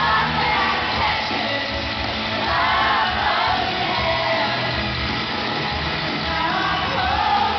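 A pop-rock band playing live in an arena, with a lead voice singing and the crowd screaming and shouting along, recorded from the audience.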